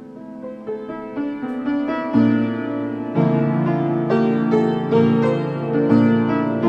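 Piano chords played as repeated notes in a steady rhythm, growing louder, with low bass notes coming in about two seconds in.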